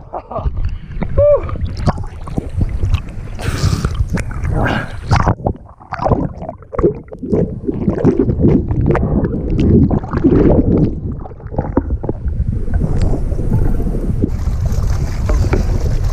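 Lake water sloshing and splashing against a camera held at the waterline by a swimmer, with muffled gurgling while it is under the surface.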